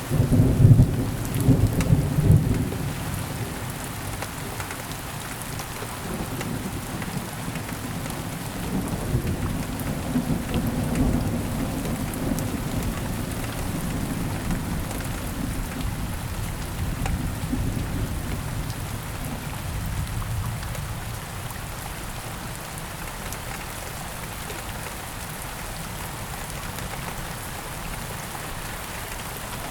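Thunderstorm: steady rain falling, with a loud low rumble of thunder in the first couple of seconds and softer rolling rumbles after it, the rain going on alone near the end.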